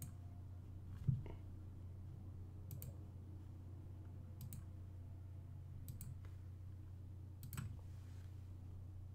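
Computer mouse clicking about six times, one click every second or two, over a steady low hum.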